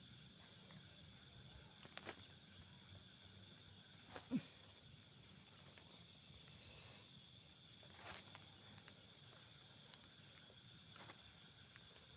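Near silence: faint steady night ambience with a few soft clicks and rustles, and one brief low sound falling in pitch about four seconds in.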